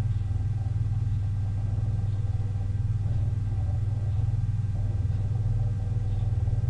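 Steady low background hum with a few faint steady higher tones above it, unchanging throughout; no speech.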